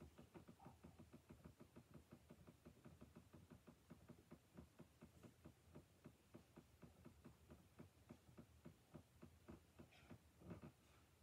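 Near silence: faint, rapid ticking at about five a second, with a couple of slightly louder knocks near the end.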